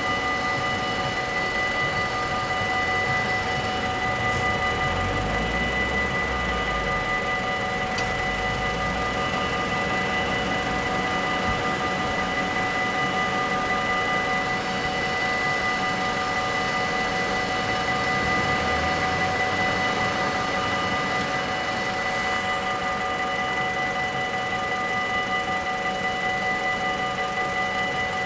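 Electric warning bells of a Dutch automatic half-barrier level crossing ringing steadily, several bells together, a sign that the crossing is closed for an approaching train.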